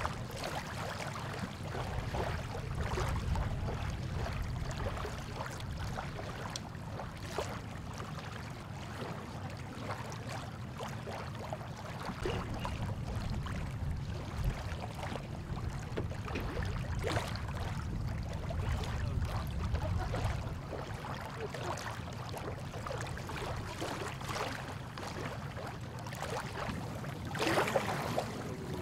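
Police patrol boat's engines idling, a steady low rumble.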